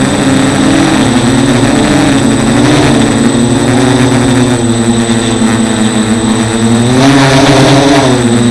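Micro hexacopter's six Turnigy 1811 2900kv brushless outrunner motors and propellers buzzing, heard up close from the frame-mounted camera. The pitch wavers up and down with the throttle corrections and rises about seven seconds in.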